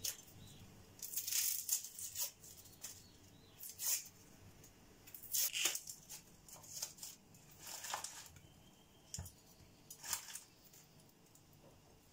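Dry, papery onion skins crackling and rustling as they are peeled off with a knife and dropped into a bowl, in short irregular bursts.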